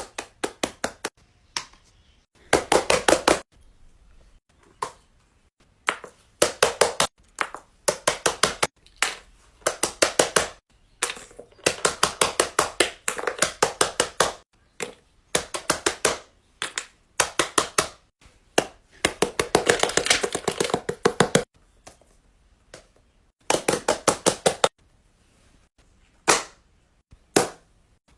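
Silicone push-pop fidget toy having its bubbles pressed in quick runs: sharp, evenly spaced pops at about six to eight a second, in bursts of a handful to a dozen or more with short pauses between.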